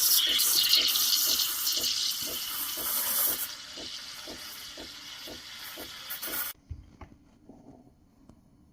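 Smeg coffee machine running: a loud hiss over a pulsing sound of about three beats a second, which eases off about halfway and cuts off suddenly near the end.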